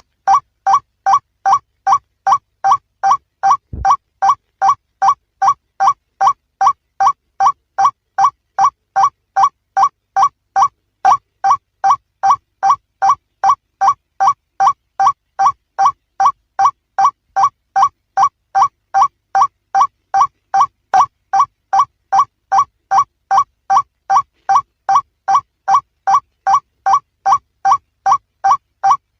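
Male white-breasted waterhen's call used as a hunting lure: one short, harsh 'kruak' note repeated at a very even pace, roughly three times a second. A brief low thump about four seconds in.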